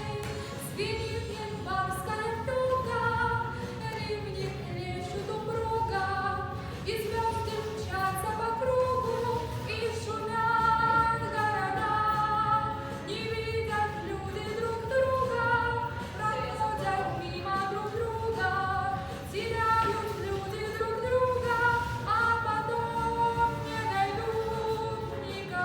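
A woman's voice singing a slow melody with long held notes, without clear instrumental backing.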